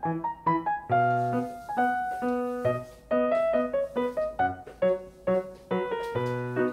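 Background piano music: a light tune of short notes struck several times a second.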